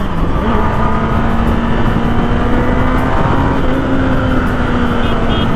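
Kawasaki Ninja ZX-10R's inline-four engine running loud and steady as the bike is ridden, its note stepping slightly higher about three seconds in.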